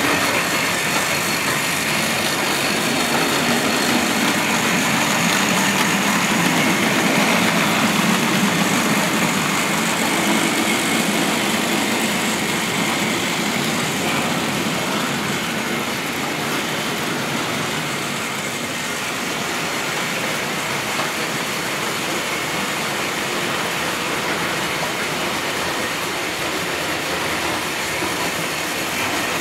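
Tri-ang 00 gauge model train, the 'Albert Hall' locomotive hauling a rake of goods wagons, running along the track: a steady electric-motor whir with rolling wheel noise, louder in the first half as the train passes close by.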